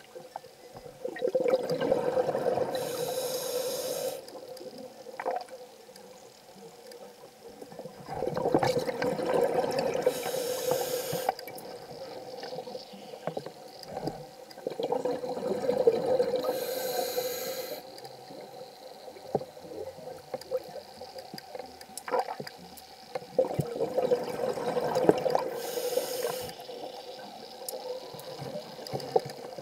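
A scuba diver breathing through a regulator, recorded underwater: four breaths about seven seconds apart, each a few seconds of bubbling with a short hiss near its end.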